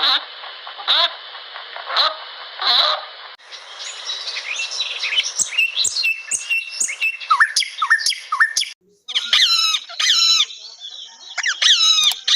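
Animal calls from cut-together clips. First a short call repeats about once a second. From about three seconds in, birds chirp and whistle. Near the end come bursts of quick, rapidly repeated calls.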